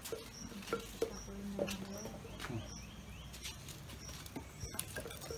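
Faint outdoor background: a short, high chirp repeats about every 0.8 s, with scattered sharp clicks and light knocks.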